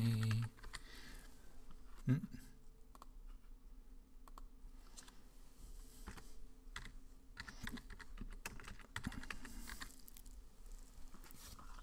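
Typing on a computer keyboard: scattered key clicks, with a brief, louder low sound about two seconds in.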